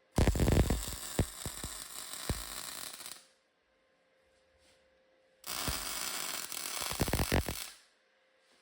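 Electric welding: two short weld runs, each a burst of steady crackling and sizzling, about three seconds and then two and a half seconds long, with a pause between them, as a steel part is tacked onto the forge's steel box.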